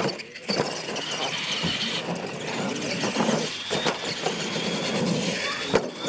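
Radio-controlled monster trucks racing side by side across dirt, their motors whining under full throttle with a faint rising and falling pitch.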